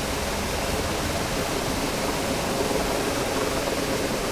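Revson Fountain's ring of water jets spraying and splashing back into its basin: a steady, even rush of falling water.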